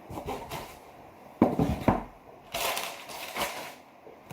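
Cardboard box and packaging of a motherboard being handled and opened: irregular rustling, crinkling and scraping in several bursts, the loudest about a second and a half in.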